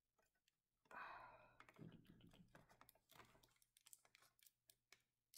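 Faint hand handling of clear tape on a cardboard desk surface: a brief rustle about a second in, then scattered light taps and clicks as the tape is pressed down.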